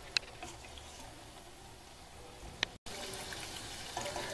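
Chaklis deep-frying in hot oil in a steel kadai: a steady soft sizzle, with two light clinks of a perforated steel ladle against the pan, once at the start and once more just before a brief dropout.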